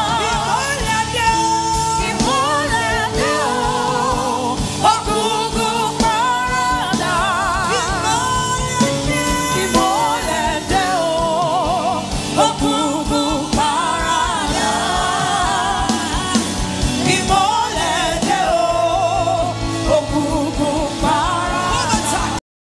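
Live gospel worship song: a woman's lead vocal, singing with a strong vibrato, over a band with drums and backing singers. The sound cuts off abruptly just before the end.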